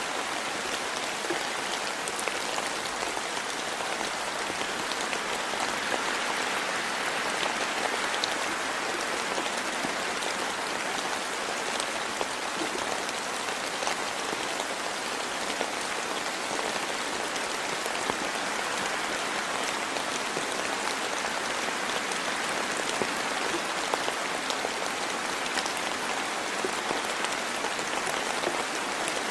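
Steady rainfall, a constant hiss with many small drop ticks on surfaces.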